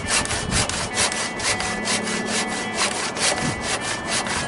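Hand saw cutting through a thick timber railway sleeper, a steady rhythm of rasping back-and-forth strokes.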